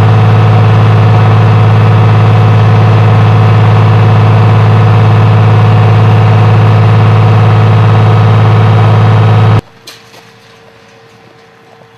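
Engine of an armoured military vehicle, heard from on board while it drives: a loud, steady low drone that does not rise or fall. It cuts off abruptly about nine and a half seconds in.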